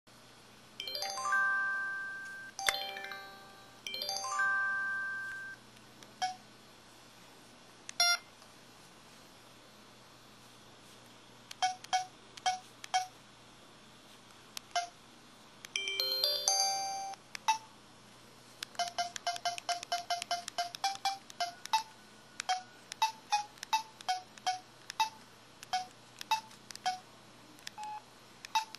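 Samsung SPH-X7500 mobile phone playing its built-in effect sounds: a few short electronic jingles with fading tails in the first seconds and again about halfway through, then keypad button beeps, singly and in quick runs.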